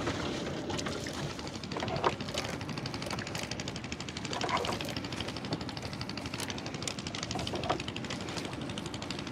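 A small engine running steadily with a fast, even putter, with a few brief louder sounds over it.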